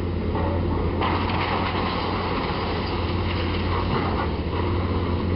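Volvo tracked excavator's diesel engine running steadily under load while its demolition attachment tears into a brick building, with the crunch and rattle of breaking masonry thickening from about a second in.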